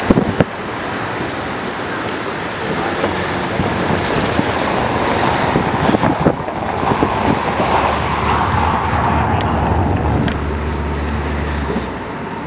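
Road and traffic noise from a car driving through city streets, heard from inside the car. The traffic noise swells in the middle, and a low steady engine hum comes up near the end.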